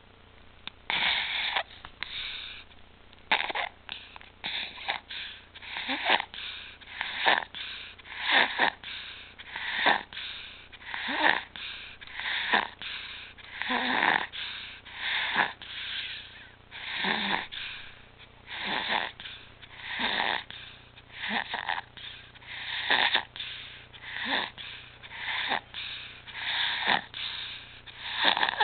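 An infant's noisy breathing, the high-pitched stridor of a narrowed airway, heard on rapid, regular breaths about a second apart or less. It starts about a second in.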